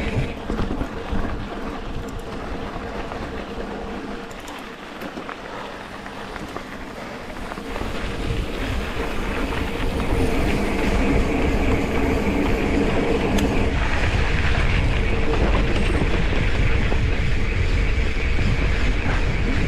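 Wind buffeting the microphone over a steady low rumble, the rumble growing louder and heavier from about eight seconds in.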